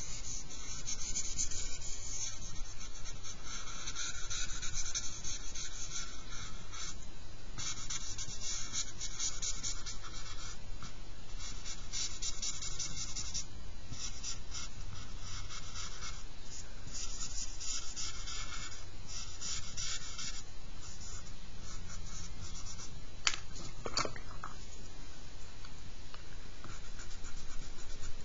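Fingers rubbing and smudging charcoal on drawing paper in stretches of scratchy friction a few seconds long, with short pauses between them. Two small clicks near the end.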